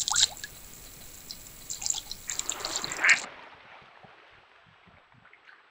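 A European otter splashing in the water as it slips off a log, the splashing building to its loudest about three seconds in, then cutting off suddenly. After that there are only faint sounds from the river with ducks on it.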